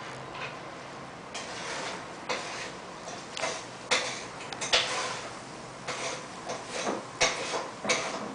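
Irregular knocks, clicks and short scrapes of a toddler handling a plastic bowl and cup on a small plastic table, sparse at first and busier after about a second and a half.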